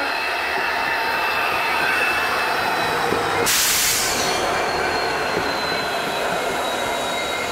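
Passenger train led by an EMD WDP4D diesel locomotive running past on the next track, with a steady rumble of coach wheels on the rails and thin, steady squealing tones. A short burst of hiss comes about halfway through.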